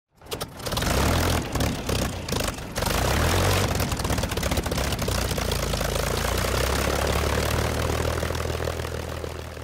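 Propeller aircraft engine running, uneven and choppy for the first few seconds, then settling into a steady drone that fades away near the end.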